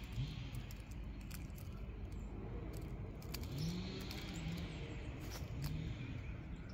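Steady low rumble, as of a vehicle running, with scattered light clicks and rattles.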